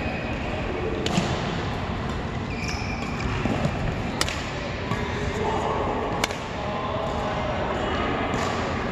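Badminton rally: rackets striking a shuttlecock, with three sharp hits a few seconds apart, about one, four and six seconds in, over the steady background noise of the hall.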